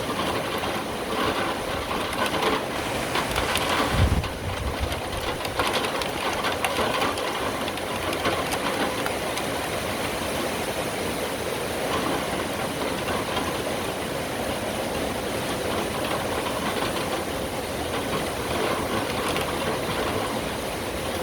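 Steady heavy rain falling, with a brief low thump about four seconds in.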